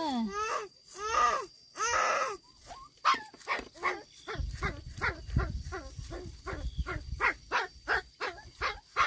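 A pig squealing in short repeated calls, about three a second.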